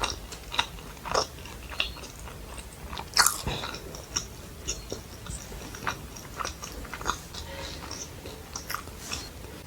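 Close-miked chewing and wet mouth clicks of a person eating fried rice and Manchurian, in an irregular series of short sounds, with one sharper, louder bite about three seconds in.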